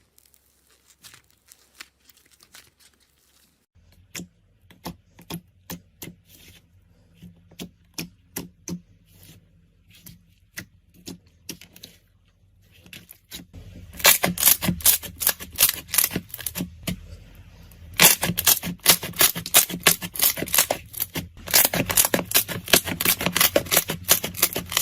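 Slime being pressed and worked, giving sharp clicks and pops. There are scattered single clicks at first, then past the middle a rapid run of loud crackling pops that breaks off for a moment and starts again.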